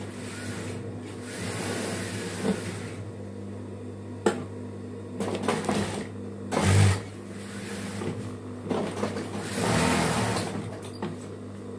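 Industrial sewing machine stitching fabric in several short runs, with a steady motor hum between them. A sharp click comes a little past four seconds and a low thump just before seven seconds.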